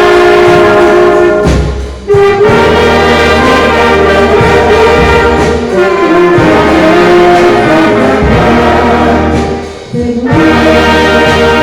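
Brass band playing an instrumental tune, trumpets and trombones holding sustained melody notes over a low bass line, with a brief break between phrases about two seconds in and another near the end.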